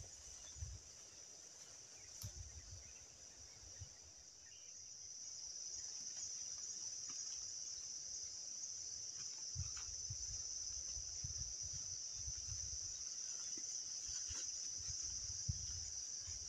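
A steady, high-pitched chorus of night insects such as crickets, shrilling without a break, with faint low rumbling underneath.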